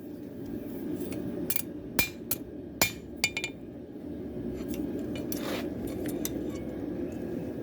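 A hammer tapping on metal: a run of sharp, ringing taps in the first few seconds, then a few fainter ones, over a steady low hum.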